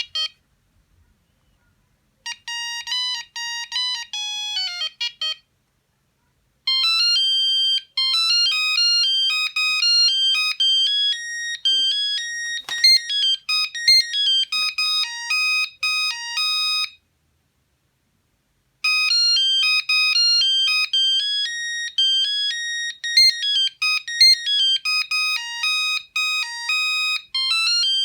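Sony CMD-CD5 mobile phone playing its built-in ringtones one after another as electronic beeping melodies. A short tune starts about two seconds in and stops, then after a brief pause a longer, faster tune plays for about ten seconds. After another pause a third tune begins.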